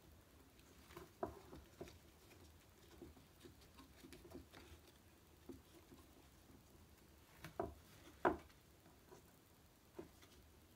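Faint scattered clicks, taps and rustles of hands handling pickup lead wires and components on a Stratocaster pickguard, with two sharper taps about three quarters of the way through.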